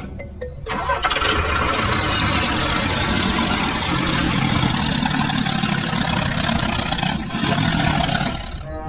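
An engine starting up about a second in, then running steadily for several seconds before it stops just short of the end.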